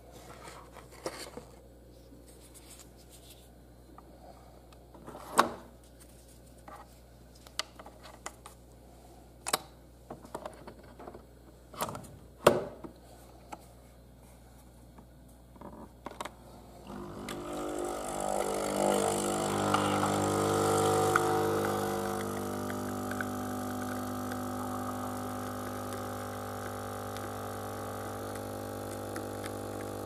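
A capsule is handled and loaded into a DeLonghi Nespresso machine and its lever closed, giving a series of clicks and knocks, the loudest about five and twelve seconds in. About halfway through, the machine's pump starts brewing espresso: a buzzing hum that rises to its loudest a few seconds after starting, then settles to a steady level.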